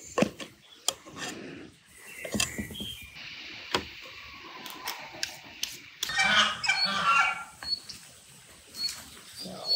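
Scattered sharp clicks and knocks, with a pitched bird call lasting about a second from about six seconds in, followed by a few faint chirps.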